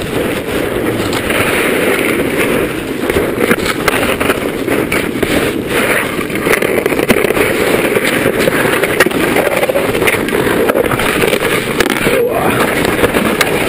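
Skis sliding and pushing through deep snow, heard on a body-mounted action camera as a steady rough rumbling hiss with scattered small knocks from the skis and poles.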